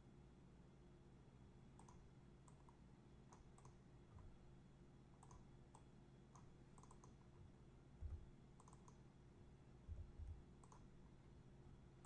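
Faint computer mouse clicks, often in quick pairs, scattered through a steady low hum, with a few soft low thumps later on.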